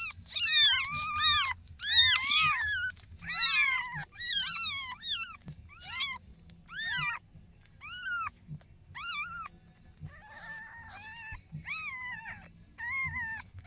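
Newborn kitten mewing over and over in short, high cries that rise and fall, about one or two a second, growing somewhat fainter in the second half.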